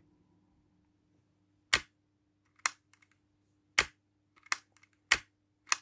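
SIG Sauer SP2022 CO2 airsoft pistol dry-fired with the magazine out: the trigger is pulled over and over, the barrel and internal hammer mechanism giving about six sharp clicks at uneven intervals.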